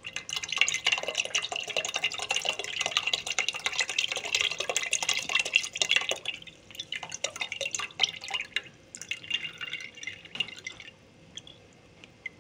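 Green yanang-leaf juice draining through a perforated metal strainer into a pot: a steady splashing trickle for about six seconds that thins to scattered drips and stops about eleven seconds in.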